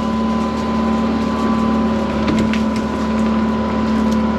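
Excavator diesel engine running steadily under load while the machine pulls a tree out by the roots, with a few short sharp clicks partway through.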